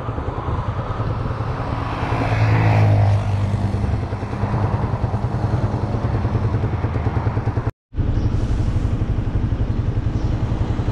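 Motorcycle engine running with a steady low pulsing and road noise. A louder swell with falling pitch, like a vehicle passing, comes about two to three seconds in. After a sudden break near eight seconds the engine goes on pulsing at the same even rhythm.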